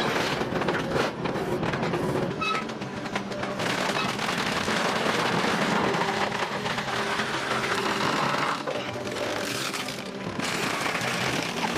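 Background music, with a steady run of cracking and crackling over it, which fits the sound of a car body being crushed in a scrap-metal baler.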